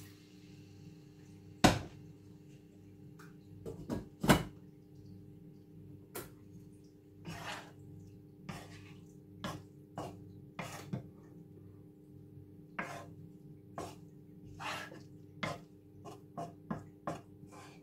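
A wooden spatula knocking and scraping in a wok as vegetables are stirred, in short irregular strokes. There are two sharp, louder knocks in the first few seconds, over a faint steady hum.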